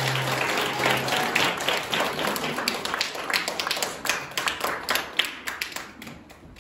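Audience applauding, many hands clapping at once, as the last held note of music dies away in the first half second; the applause thins out and fades near the end.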